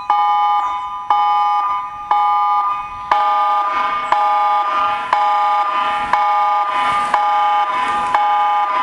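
Emergency alert alarm tone played back: a chord of several steady tones pulsing about once a second, each pulse starting sharply and fading. About three seconds in, a lower tone and a faint hiss join the pulses, giving it a beat-like sound.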